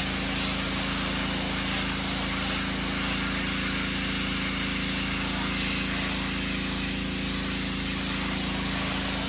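Pressure washer running steadily: a constant motor hum under the hiss of its spray.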